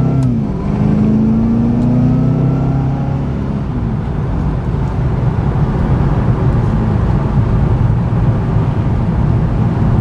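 Supercharged 6.2-litre V8 of a 2011 Cadillac CTS-V coupe accelerating, its engine note rising over the first few seconds, then settling into steady road and tyre noise at cruise, heard from inside the cabin.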